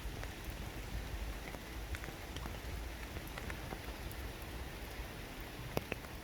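Raindrops falling onto water and leaves: a steady patter with scattered separate drip ticks, one sharper drop near the end.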